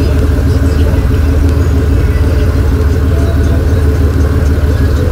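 Dodge Charger's engine and exhaust running at low speed as the car rolls slowly past, a steady, loud, low exhaust note.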